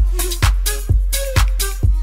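Electronic dance-style background music with a steady kick drum about two beats a second over deep bass and synth notes.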